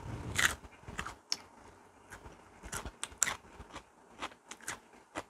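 Someone chewing bites of raw cucumber cubes: about a dozen sharp, crisp crunches at an irregular pace, the loudest about half a second in.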